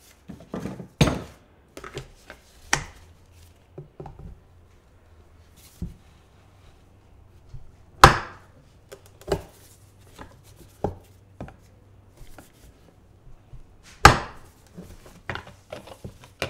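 Metal tire spoons and plastic rim shields clacking and knocking against a scooter wheel rim and the wooden workbench as the tire's bead is pried off by hand. The knocks are sharp and scattered, the two loudest about eight and fourteen seconds in.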